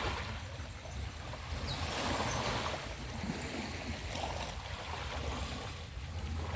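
Sea waves washing onto a beach, swelling about two seconds in, with a steady low wind rumble on the microphone.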